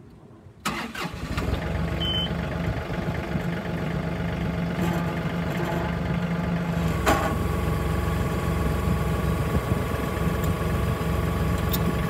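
John Deere 3033R compact tractor's three-cylinder diesel engine starting up: it catches about a second in and settles into a steady idle. A single sharp knock sounds about seven seconds in, after which a steady higher tone runs along with the idle.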